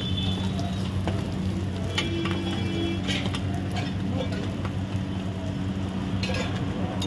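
Parottas frying on a large flat iron griddle: steady sizzling with scattered clinks and scrapes of a metal spatula, over a constant low hum.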